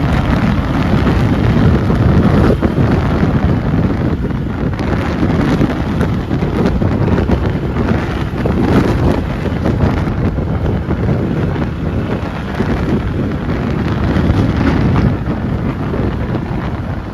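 Wind buffeting the microphone: a loud, steady rumble that swells and eases in gusts.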